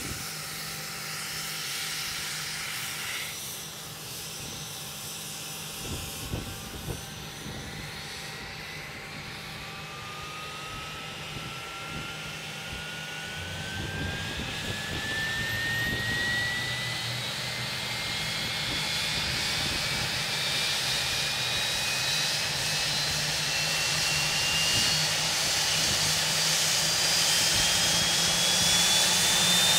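Rolls-Royce Spey turbofan of a Hawker Siddeley Nimrod starting up. At first there is a hiss of air, which drops away after a few seconds. From about eight seconds in, a whine rises steadily in pitch and grows louder as the engine spools up.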